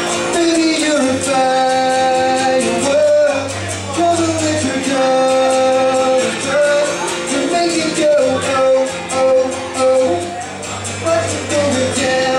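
Two acoustic guitars strummed in a steady rhythm while a male voice sings long held notes, played live through microphones.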